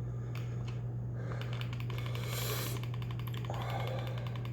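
A person breathing heavily with a burning mouth from hot sauce and chili powder, with one short sharp breath about two and a half seconds in, over a steady low electrical hum.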